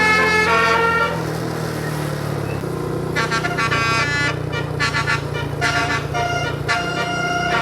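Bus 'telolet' multi-tone horn playing a melody in short stepped notes: one phrase at the start, then after a pause of about two seconds a run of quick notes to the end. A steady low engine hum runs underneath.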